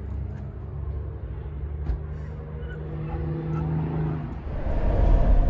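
Vehicle engine running as it drives: a low hum with a steady tone that rises slightly in pitch, and the low rumble grows louder near the end.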